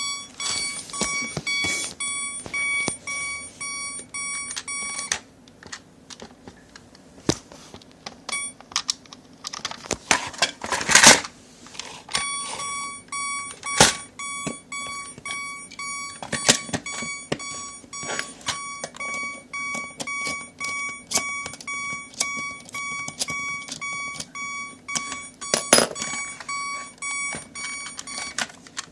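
Plarail electronic toy level crossing ringing its crossing-bell signal: a repeating electronic beeping tone that sounds for about five seconds, stops, then rings again for about sixteen seconds. Clicks and a brief loud rattle fill the gap between.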